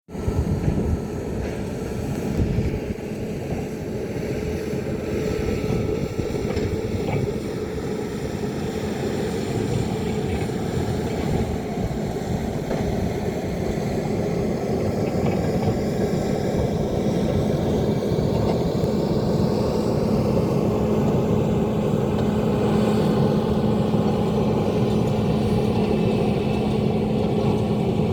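Excavator's diesel engine running steadily under load, a drone that holds one pitch throughout, with a couple of knocks in the first few seconds.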